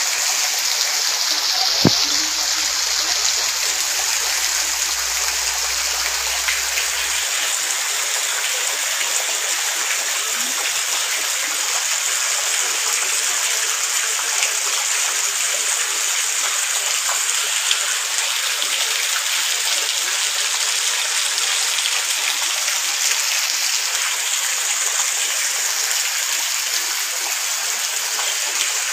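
Heavy monsoon rain falling steadily on a yard, a dense even hiss of drops on wet ground and puddles, with runoff from the roofs splashing down. There is a single knock about two seconds in.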